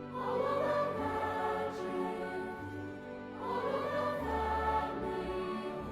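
Background music: a choir singing sustained chords over a low bass, swelling up at the start and again about three and a half seconds in.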